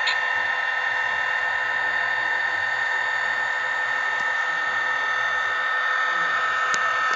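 MRC sound decoder in a Bachmann SD40-2 model locomotive playing its diesel engine sound through the model's small speaker: a steady, thin-sounding whir with no bass and high whining tones. There is a short click near the start and another near the end.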